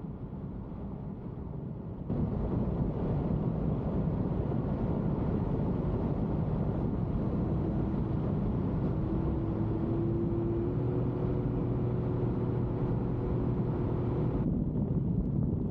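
Jeep Cherokee XJ driving, a steady engine and road rumble that gets abruptly louder about two seconds in, with a steady engine note audible through the middle part.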